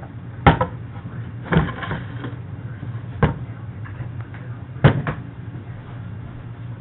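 Four sharp knocks and clacks, spaced a second or two apart, as kitchen things are set down or handled on a counter, over a steady low hum.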